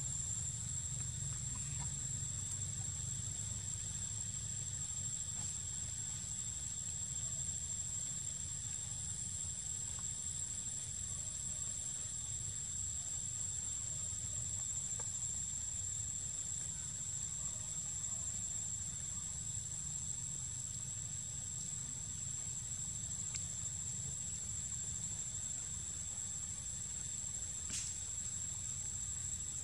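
Steady, high-pitched drone of an insect chorus, with a low rumble beneath it. A single sharp click near the end.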